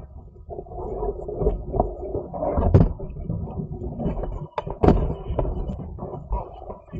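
Honeybee colony humming inside the hive, a steady muffled hum broken by several sharp knocks, the loudest nearly three seconds in and again near five seconds.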